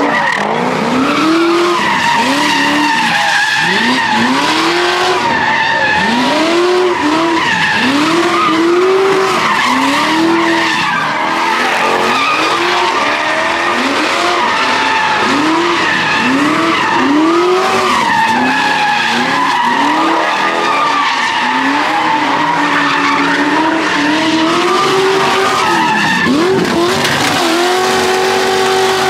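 Cars spinning donuts: engines revving up and down about once a second over continuous tire screech as the rear tires spin and smoke. Near the end the revs are held steady.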